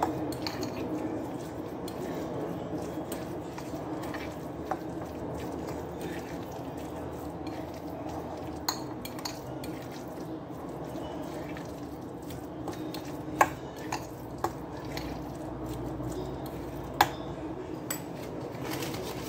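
Kitchen utensils and dishes clinking: a handful of sharp, separate clinks, the loudest about two-thirds of the way through, over a steady background noise.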